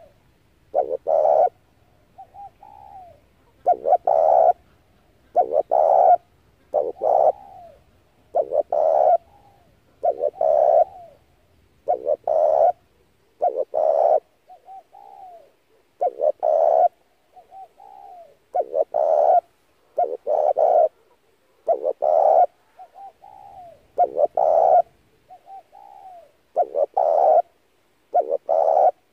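Spotted dove cooing over and over: loud paired coos every couple of seconds, with softer falling coo notes between them.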